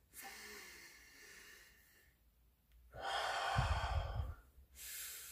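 A man's deep breathing: a soft breath at the start, then after a short pause a louder, drawn-out breath about three seconds in, and another beginning near the end.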